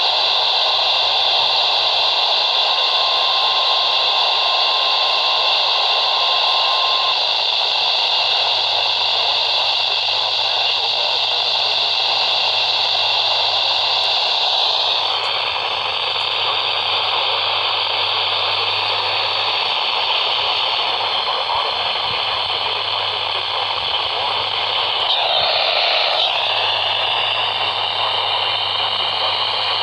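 Weather-radio receiver hissing with heavy static, with a single steady alarm tone (NOAA Weather Radio's 1050 Hz warning alarm tone) running through it that cuts off about seven seconds in. The static changes in character about halfway through and swells briefly near the end.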